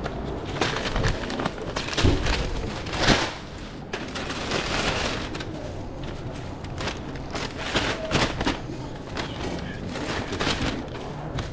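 Handling clatter at a hot dog cart: irregular knocks and clacks with stretches of paper-like rustling as an order is put together. The loudest knocks come about 2 and 3 seconds in.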